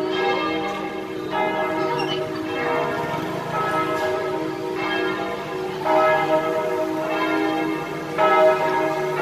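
Church bells of St. Joseph's Cathedral ringing, with a fresh stroke about every second and each stroke ringing on into the next.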